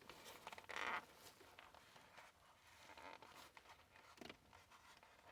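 Faint rustling and scraping of the leather shift boot and shift knob being handled and pushed down onto the gear lever, with a short louder rustle about a second in.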